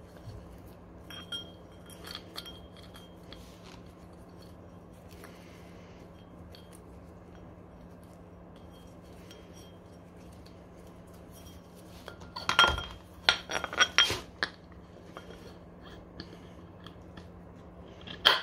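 Metal tools and parts clinking and ringing against each other: a few light clinks early, a cluster of loud ringing clinks about twelve to fourteen seconds in, and one sharp clink at the end, over a steady low hum.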